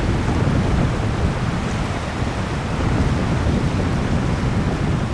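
Steady rushing of the bore tide's breaking whitewash.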